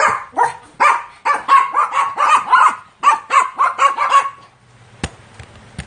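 Pomeranian barking rapidly, a run of short, sharp yaps at about four a second that stops about four seconds in. A single sharp click follows about a second later.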